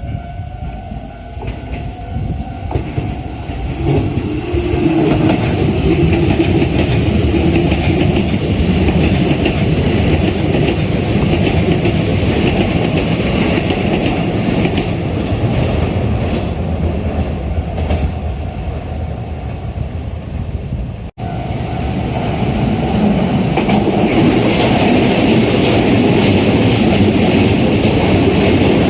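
Electric commuter train passing at a level crossing, its wheels running loud over the rails, with a rising whine at the start. About two-thirds in the sound cuts off for an instant and another train's passing noise continues.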